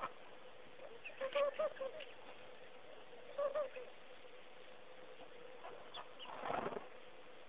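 Birds calling at a waterhole: two short runs of cooing, dove-like notes a couple of seconds apart, over a faint steady hum. A brief burst of noise comes near the end.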